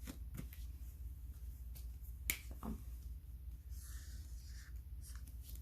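A single sharp click about two seconds in, with a few fainter soft handling sounds, over a low steady hum.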